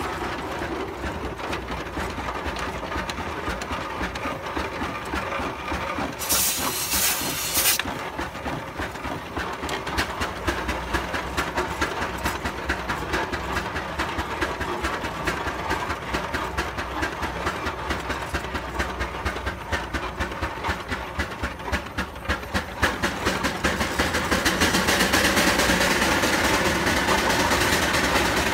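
Antique steam traction engine running as it drives, with a rapid, even beat from the engine throughout. About six seconds in there is a short, loud burst of hissing steam, and over the last five seconds the sound grows louder with a steady hiss of escaping steam.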